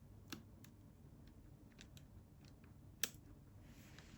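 Faint small clicks and taps from handling parts inside an open laptop while the battery cable is reconnected, with two sharper clicks, one just after the start and one about three seconds in.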